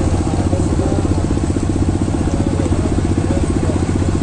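An engine running steadily at an even, rapid beat.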